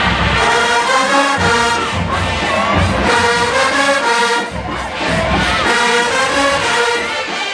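HBCU show-style marching band playing loudly: a brass section of trombones and trumpets blaring a riff over heavy low drum hits.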